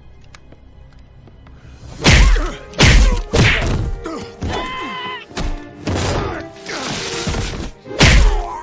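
Film fight sound effects: a quick run of heavy punch and kick impacts starting about two seconds in, with a short pained cry in the middle, over a film score.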